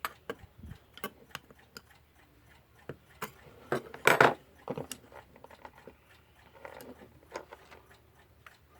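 Small metal parts of an electric clock movement and hand tools clicking and tapping irregularly as the movement is worked apart, with a louder clatter about four seconds in.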